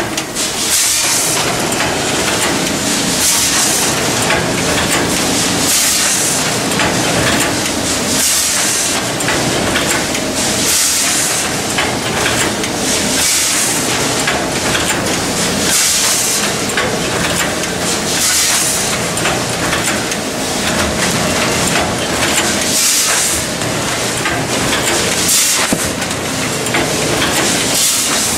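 Kenwei vertical bagging machine running through its packing cycle. A steady mechanical clatter is broken by a burst of hiss that repeats about every two and a half seconds.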